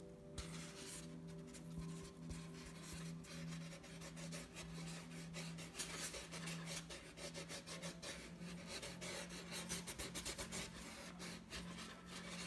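Paintbrush rubbing and scrubbing paint onto a rough, textured painting surface: a run of short, scratchy strokes, fairly faint, over a steady low hum.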